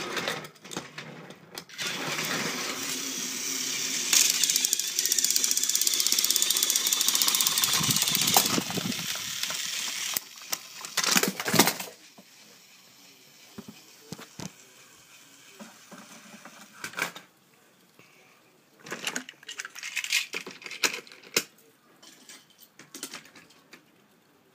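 Battery-powered toy train engines running on plastic track: a steady whir and rattle of small motors and gears for about eight seconds, cutting off about ten seconds in. After that come a few sharp clicks and scattered light rattles.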